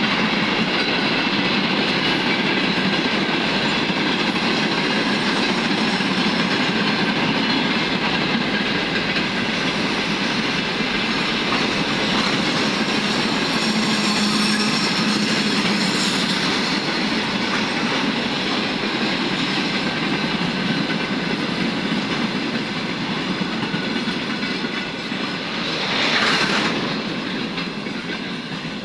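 Freight train of tank cars rolling past, wheels clattering over the rail joints, with a chorus of steady whistling, squealing tones riding over the rumble. Near the end a brief louder rush, then the train noise eases off slightly.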